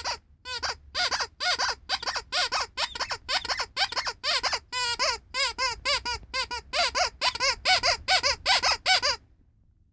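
Rubber bunny squeaky toy squeezed over and over, giving short pitched squeaks that bend up and down, about three a second, stopping about nine seconds in.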